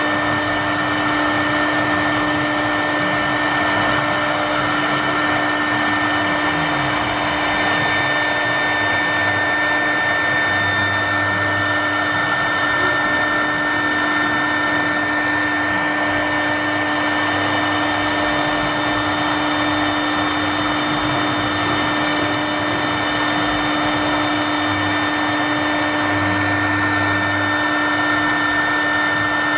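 CNC router spindle running steadily with a high whine while its bit engraves grooves into a wooden board, with the hiss of the cut under it.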